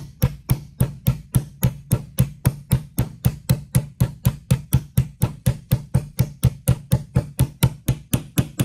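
Small hammer lightly tapping a socket set on a new ball bearing's inner race, driving the bearing onto a gearbox gear shaft: a steady, even run of metallic taps, about four a second.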